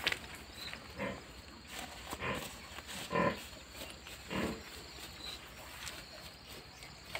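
Farm animals calling, four short low calls about a second apart, the third the loudest, with a sharp knock right at the start.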